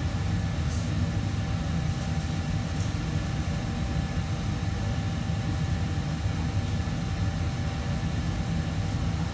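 Steady low rumble of kitchen fans and ventilation running, with a faint steady hum in it.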